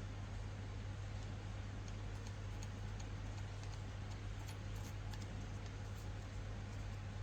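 A steady low hum with an even background hiss, and faint, scattered light ticks between about two and six seconds in, like small metal parts or tools being handled.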